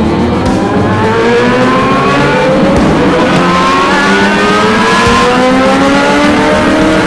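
Several four-cylinder motorcycle engines accelerating together, their overlapping pitches rising steadily as they pull through the revs.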